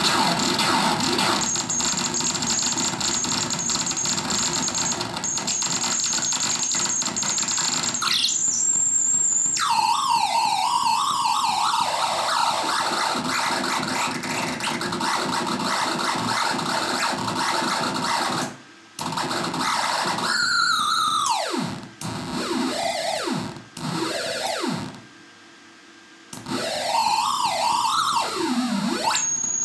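Hand-built circuit-bent analog noise synth being played by turning its knobs. For the first eight seconds or so it gives a dense buzzing noise with a steady high whine. Then come wobbling, warbling tones under LFO modulation. Past the middle the pitch dives downward in several falling sweeps, with brief cut-outs and a near drop-out of about a second, and the warbling returns near the end.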